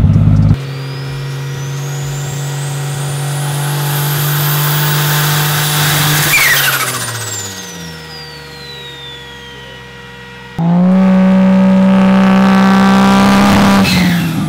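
Car engine in several edited clips. First it runs at steady revs with a high whistle that rises and then falls, and its note drops away about halfway through. After a sudden cut it is held loud at high, slowly rising revs, then drops off near the end.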